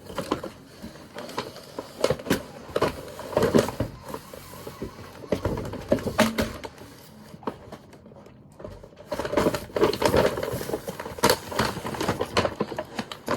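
Toys and plastic packaging being handled: irregular clicks, taps and rustles, quieter for a couple of seconds in the middle.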